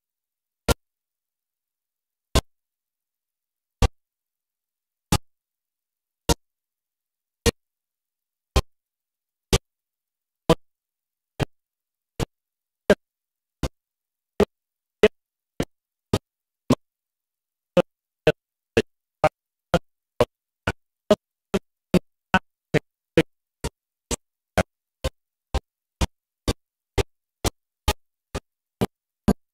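Synthesized music made of short, sharp electronic hits with silence between them, speeding up from about one every one and a half seconds to about two a second.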